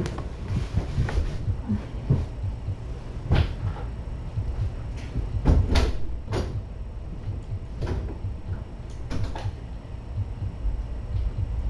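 A run of separate sharp knocks and clicks, like doors or cupboards being handled, the loudest about halfway through, over a steady low hum.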